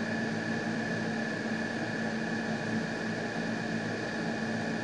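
Steady room hum and hiss, like an air conditioner or ventilation, with a constant faint high whine; nothing starts or stops.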